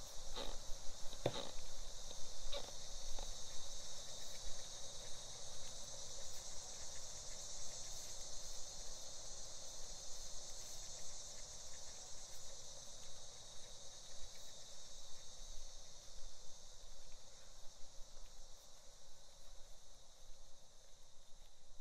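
Crickets chirring steadily, easing off slightly toward the end, with a few soft knocks like footsteps in the first few seconds.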